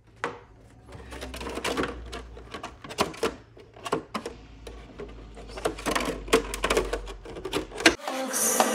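Irregular plastic clicks and knocks of a short-course RC truck's plastic body shell being fitted down onto its chassis and handled on a counter.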